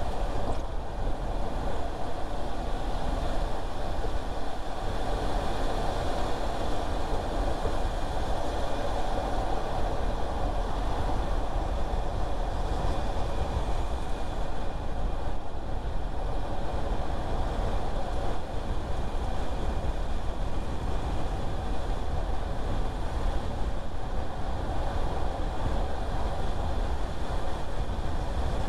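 Steady road noise of a car driving along: tyre and engine noise with no change in pace or any sudden event.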